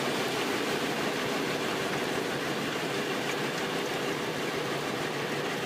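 A 4 m self-propelled compost turner working through a compost windrow: its engine and turning drum make a steady, even mechanical noise mixed with the rush of churned compost.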